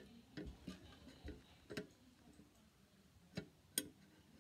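Faint, irregular clicks and taps of hands handling a plastic game spinner wheel, about half a dozen small sharp clicks spread through the quiet.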